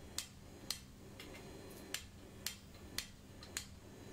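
Hand hammer striking the top die of a blacksmith's guillotine tool, sharp light metallic strikes about twice a second, as the dies are driven into a hot steel bar to cut in on its sides.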